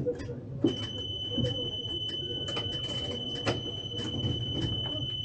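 A steady, high-pitched electronic warning tone starts about a second in and holds for about four and a half seconds before stopping. Under it are a low rumble and scattered knocks and clicks.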